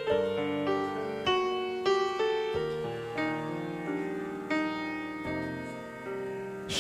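Piano playing a slow introduction to a choir anthem: chords and melody notes struck about every half second to second, each left to ring and fade. A choir comes in singing at the very end.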